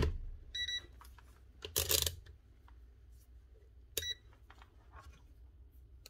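Digital multimeter beeping twice, a short beep about half a second in and a briefer one with a click about four seconds in, among handling knocks and rustles as a cordless tool's switch is tested.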